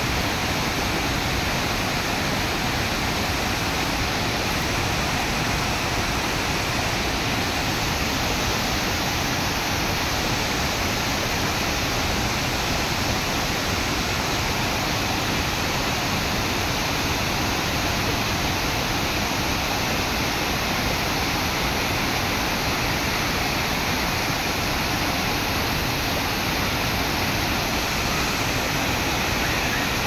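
Waterfall cascades, water rushing over stepped rock terraces. It is a loud, steady rush with no breaks and no distinct events.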